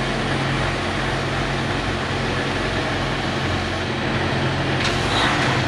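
Semi truck's diesel engine running steadily as the truck rolls slowly, heard from inside the cab, with a low hum under road and cab noise. A short burst of hiss comes near the end.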